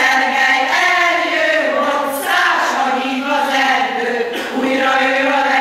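Women's choir singing together, several voices holding and moving through notes with no break.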